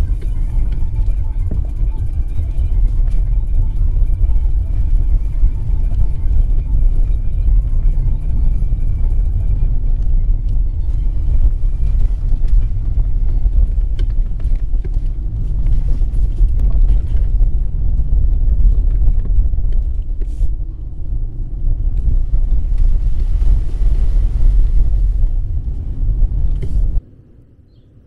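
SUV driving over a rough dirt forest track, heard through a hood-mounted camera: a loud, steady low rumble with scattered knocks and jolts. About a second before the end it cuts off abruptly to quiet outdoor background.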